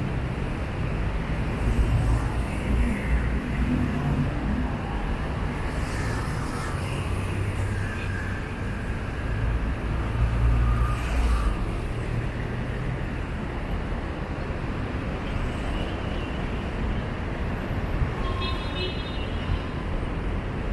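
Busy city road traffic: a steady rumble of car and bus engines and tyre noise, swelling as vehicles pass close about 2 seconds in and again around 10 seconds in.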